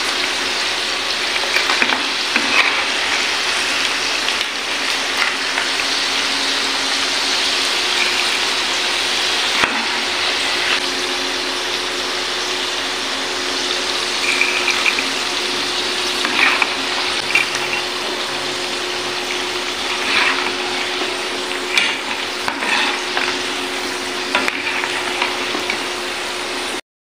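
Cassava pieces deep-frying in hot oil in a pan, a steady sizzle throughout. Scattered clicks and scrapes come from a metal slotted spoon stirring the pieces and lifting them out.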